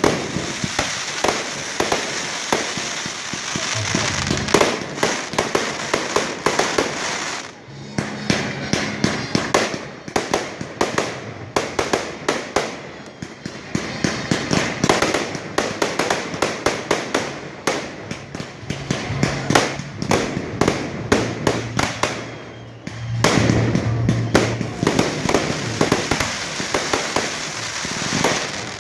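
Fireworks display: a dense run of shells bursting in rapid bangs and crackles, with brief lulls about seven seconds in and again about twenty-two seconds in.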